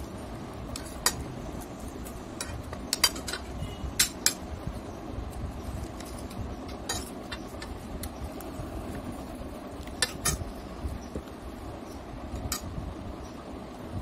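A metal spoon clinking and scraping against a ceramic plate while scooping fried rice, in scattered single sharp clicks, a few close together, over steady background noise.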